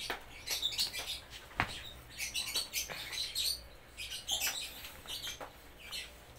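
Small birds chirping over and over in short, high calls, with a sharp click about a second and a half in.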